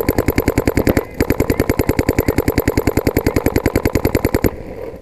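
Electronic paintball marker firing rapid strings of shots, about a dozen a second, heard loud and close from a barrel-mounted camera; the fire pauses briefly about a second in and stops abruptly near the end.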